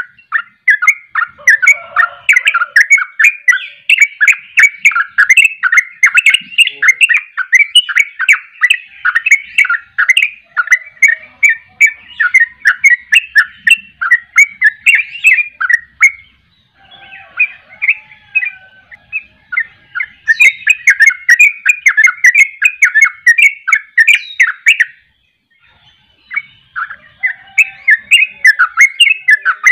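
Caged yellow-vented bulbul singing long, fast runs of bubbly chirping notes. This is the rapid, unbroken 'ropel' song that keepers prize in the bird. The song breaks briefly about sixteen seconds in and again about twenty-five seconds in.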